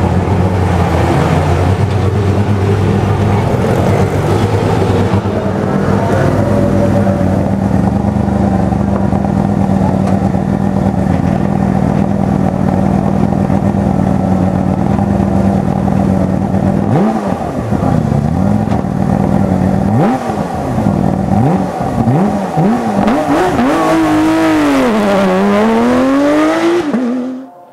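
Porsche 997 GT3 Cup race car's flat-six engine idling with a steady note, then blipped up and down in revs from about halfway. Near the end it pulls away hard, the pitch climbing, dipping at a gear change and climbing again, before the sound cuts off abruptly.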